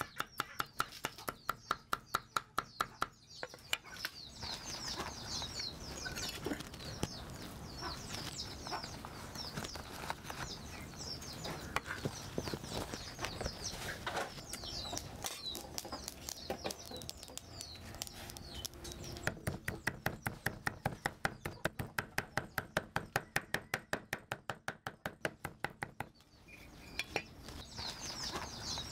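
Cleaver chopping prohok fish-paste mixture on a board in quick, even strokes, about four a second, for the first few seconds, with a second run of the same strokes later on. Chickens and small birds chirp and cluck in the background throughout.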